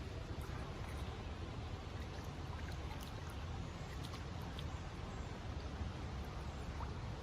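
Steady wash of running creek water under a low rumble, with a few faint ticks.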